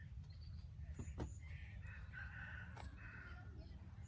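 A bird calls for about a second, starting around two seconds in, over a steady low rumble, with a few faint clicks.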